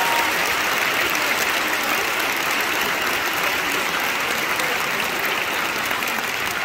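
Theatre audience and stage cast applauding, a dense, even clapping that holds steady.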